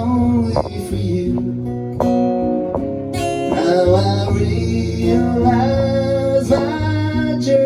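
Acoustic guitar strummed, playing a song's instrumental intro, with a steady low bass line under the chords.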